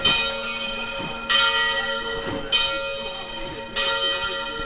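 A church bell tolling, struck about every 1.2 seconds, each stroke ringing on until the next.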